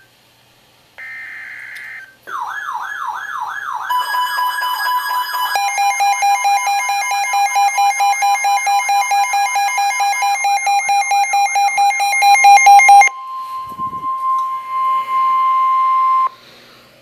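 Midland NOAA weather radio sounding its alert for a severe thunderstorm warning. A short buzzy burst of the alert's data header comes first, then a warbling siren with rapid pulsing beeps over a steady high tone. The siren stops, and the steady tone carries on alone for a few seconds before cutting off.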